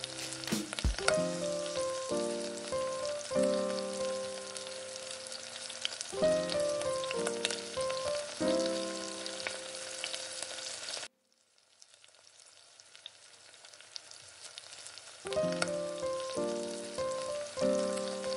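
Pancake batter sizzling and crackling in a small nonstick frying pan, under light background music. About eleven seconds in, the sound drops to a faint sizzle with no music for about four seconds, then the music comes back.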